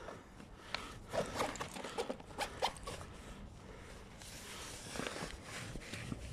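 Zipper on a sports bag being pulled open in a few short, rasping tugs, followed by softer handling of the bag's fabric near the end.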